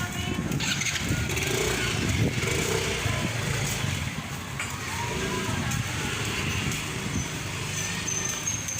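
Outdoor street noise: vehicle engines and tyres passing, with faint voices in the background.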